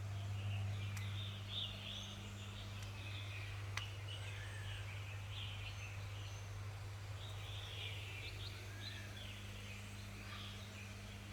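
Small caged birds chirping in short, repeated calls throughout, over a steady low hum and a few faint clicks.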